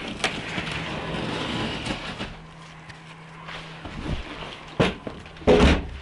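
An aluminium Kazanka boat being pushed off the bank and boarded: a scraping rustle, then heavy thumps of feet landing on the metal hull, the loudest near the end.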